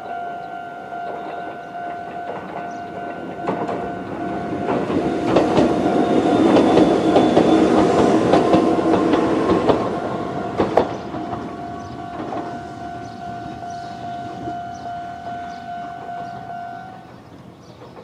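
Japanese level crossing warning bell ringing in the older standard tone at a fast tempo, while a Kōnan Railway 7000 series train passes over the crossing, its wheels clacking on the rails, loudest in the middle. The bell stops about a second before the end.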